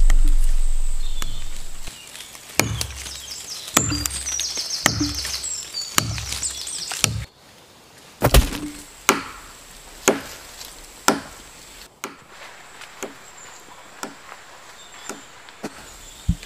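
A music bed fades out, then a blade chops into a tree trunk, with strikes about once a second and one heavier blow about eight seconds in. Birds chirp over the first few strokes.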